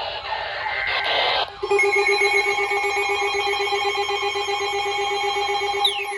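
NOAA Weather Radio receiver going off for an alert: a short rough burst of data noise, then from about a second and a half in a loud, steady, rapidly pulsing electronic alarm tone.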